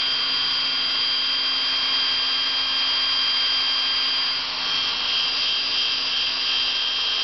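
Electric drill running steadily with a high whine, its bit boring into a laptop's LCD screen. The level dips briefly about four and a half seconds in.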